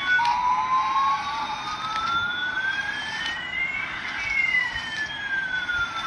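Electronic sound effect from a battery-powered toy Airbus A380 airliner's sound chip: two slow sliding tones, one rising and one falling, crossing about two-thirds of the way through, like a siren or jet whine.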